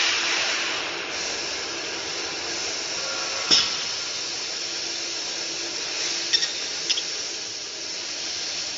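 Pneumatic meat roll stuffing machine running: a steady hiss of compressed air over a low machine hum, with one sharp click about three and a half seconds in and a few lighter clicks between six and seven seconds.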